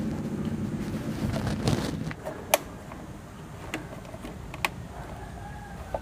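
A few sharp separate clicks and taps of the scooter's plastic headlight cover and front body panel being pressed and snapped back into place by hand.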